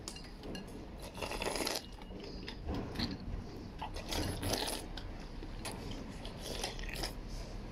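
Slurping broth and glass noodles from a porcelain bowl held at the lips: a few noisy slurps a second or two apart, with light clicks of chopsticks against the bowl.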